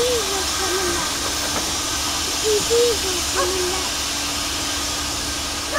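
Steady steam hiss from LMS Black Five 4-6-0 steam locomotive no. 5428 as it moves off slowly, with steam escaping low at the cylinders.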